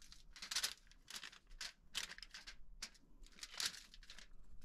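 Aluminum foil crinkling faintly in short, irregular crackles as hands press butter into a trout lying on the sheet.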